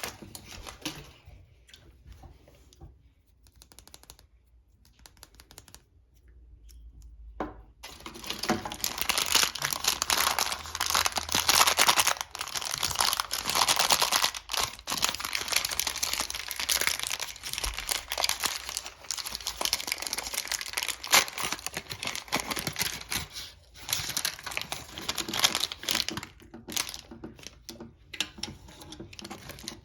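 Plastic packaging being crinkled and torn open by hand as a Mini Brands surprise ball and its small wrapped items are unwrapped. It is faint and sparse at first, then turns into dense, loud crinkling from about eight seconds in.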